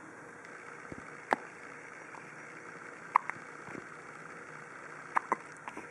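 Baby hiccuping: a few short, sudden hics a second or two apart over a steady background hiss.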